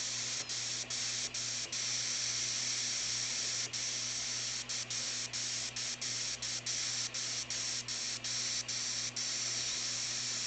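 FM radio static, a steady hiss from a portable MP3 player's small built-in speaker, cut by about twenty brief silences as the tuner steps from one preset or frequency to the next without finding a station.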